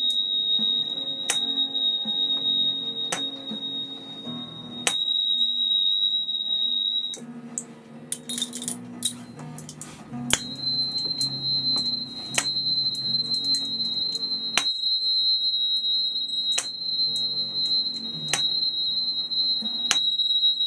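Therapy tuning forks struck about every two seconds, each sharp tap followed by low, steady ringing tones. Over them runs a high, steady ringing tone that breaks off about seven seconds in and returns slightly higher about three seconds later.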